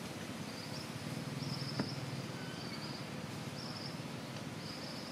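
Forest background with an insect making short, high-pitched buzzes, about half a second each, repeated several times, and a single sharp click just under two seconds in.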